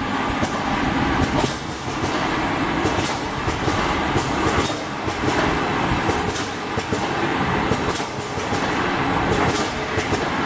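Automatic bottle filling and capping line running: a steady, dense mechanical clatter from the conveyor, star wheel and glass bottles, with frequent sharp clicks and brief high hisses now and then.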